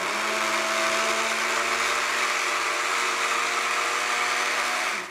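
Adler AD 4054 personal blender's motor running steadily with its bottle held pressed onto the base, a high whirring hum. Near the end it cuts off and briefly spins down.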